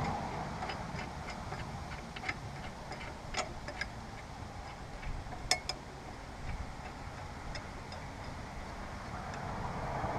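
Irregular light metallic clicks and clinks of hand tools against a lawn mower blade and its bolt as the new blade is seated and the bolt worked with a socket, the sharpest about three and a half and five and a half seconds in.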